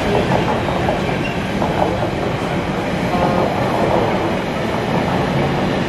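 Container freight train's flat wagons rolling past, a steady loud noise of wheels running on the rails.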